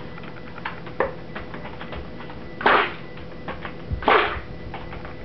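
Stick blender pulsed in soap batter: two short whirring bursts about a second and a half apart, with light clicks and taps between.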